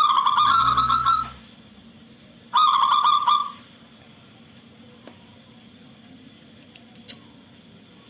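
Zebra dove (perkutut) cooing: two rapid, trilling phrases, one at the start lasting over a second and another about two and a half seconds in.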